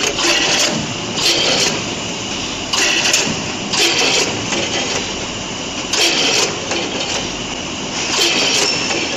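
A multihead combination weigher and vertical form-fill-seal packing machine running: a steady mechanical din, with a sharper rush of noise every one to two seconds as the machine cycles.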